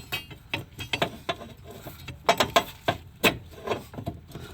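Irregular metal knocks and clanks from a crowbar's hooked end prying and rocking a CV axle to break it free of the transmission.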